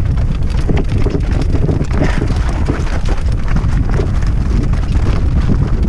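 Mountain bike rattling and knocking over a loose, rocky singletrack at speed, the many small impacts running together under heavy wind rumble on the microphone.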